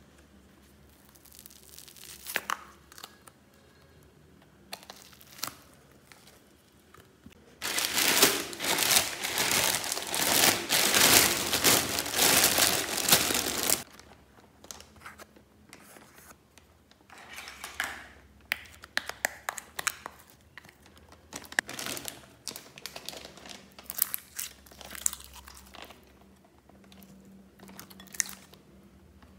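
Plastic garbage bag crinkling loudly for several seconds as old slime is dumped into it, followed by sticky slime crackling and pulling apart in many short clicks as it is peeled from the hands and containers.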